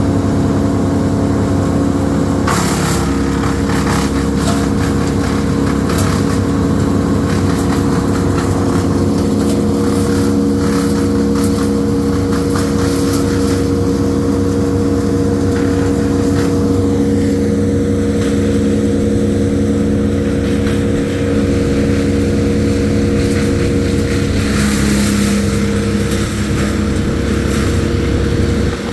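An engine running steadily at a held speed, its pitch shifting about two and a half seconds in and again near the end.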